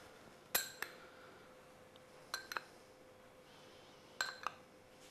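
A metal spoon clinking against a small glass bowl: three pairs of sharp clinks a couple of seconds apart, each ringing briefly, over a faint steady hum.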